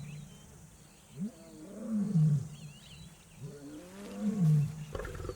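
Male lion roaring: two long, deep calls about two seconds apart, each rising and then falling in pitch. It is a lone territorial call advertising his presence.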